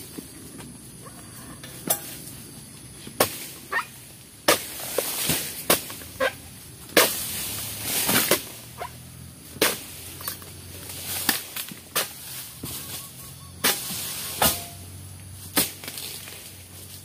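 Oil palm harvesting pole cutting into palm frond bases: about a dozen sharp, irregular chops, with a couple of longer rustling rushes around the middle.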